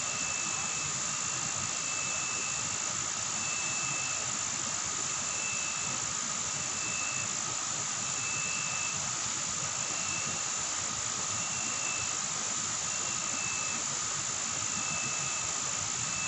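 Chorus of forest insects: a steady high-pitched buzz, with a short repeated chirping note about every one and a half seconds.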